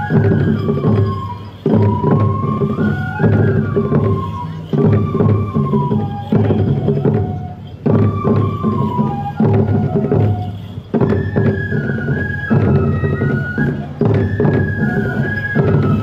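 Tiger-dance (toramai) festival music: a Japanese bamboo flute (fue) playing a stepping melody over taiko drum strokes, with a loud drum phrase coming back about every one and a half seconds.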